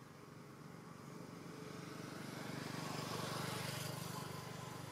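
A motor vehicle passing by: a low engine hum with a rushing noise that builds to its loudest about three and a half seconds in, then fades.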